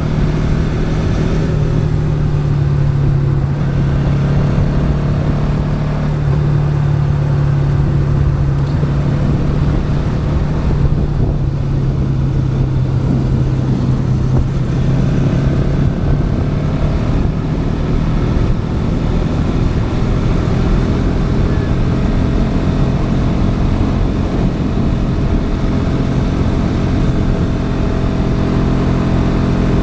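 Bajaj Pulsar NS200's single-cylinder engine running under way, heard from on board over road and wind noise. The engine note holds fairly steady, easing down slightly midway and then rising again.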